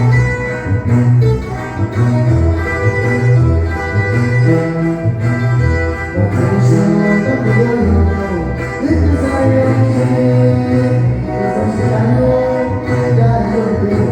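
Live band music led by a tuba, which plays a loud bass line that steps from note to note beneath the melody instruments.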